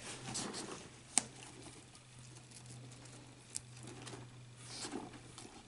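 Faint handling sounds: quiet rustling with two sharp, light clicks about two and a half seconds apart, over a low steady hum.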